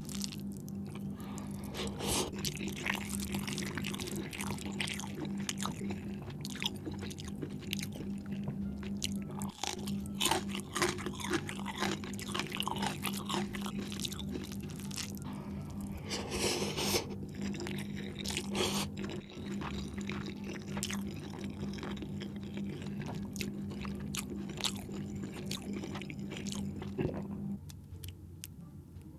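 Close-miked chewing and biting of spinach chicken curry: a dense run of short wet clicks, loudest for a moment a little past halfway. A steady low hum underneath stops shortly before the end.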